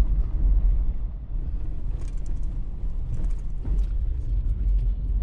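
Road noise inside a pickup truck's cab while driving: a steady low rumble, with scattered light clicks and rattles in the second half.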